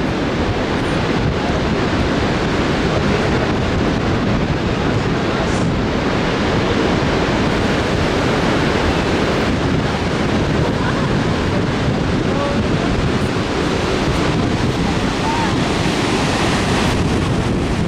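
Steady rushing of the Lower Falls of the Yellowstone River, a dense unbroken wash of falling water, with wind on the microphone.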